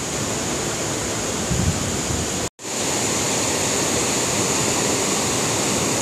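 Steady rush of a waterfall, broken by a brief dropout about two and a half seconds in.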